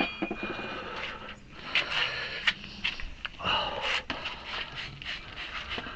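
Hard, sniffing breaths of a man straining at manual work, mixed with scattered clicks and scrapes of a steel tire iron working a tire bead onto its rim.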